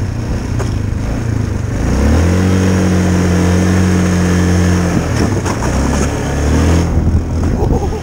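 Yamaha Kodiak 450 ATV's single-cylinder engine revving hard as the quad slides on ice. The revs climb about two seconds in and hold steady, drop briefly around five seconds, then climb again.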